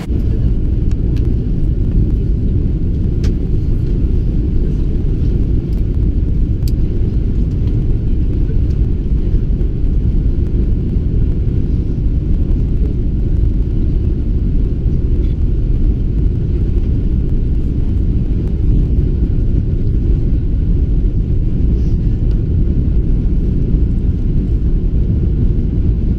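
Steady low rumble of cabin noise inside a Boeing 777-300ER descending on final approach: engine and airflow noise heard through the fuselage by the window.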